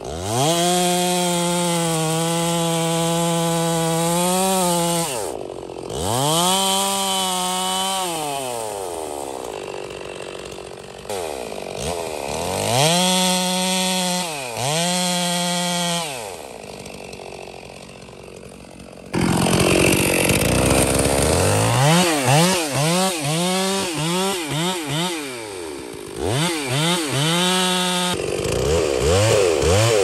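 Two-stroke Stihl chainsaw cutting into a tree trunk for a felling cut. The engine speed rises to full throttle and sags again and again as the chain bites into the wood, with a few abrupt breaks.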